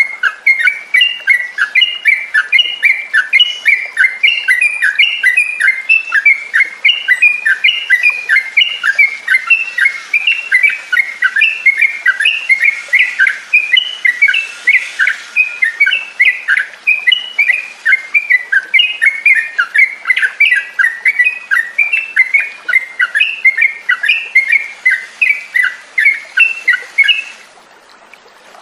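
Yellow-vented bulbul singing a long, unbroken run of rapid, bubbly chattering notes, several a second. The song stops about a second before the end.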